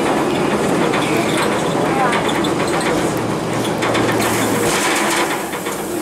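Interior noise of a 2002 Blue Bird CS transit bus under way: its Cummins ISC six-cylinder diesel and Allison B400R automatic transmission running, with the body and fittings rattling. The engine's low drone comes up for a second or two past the middle.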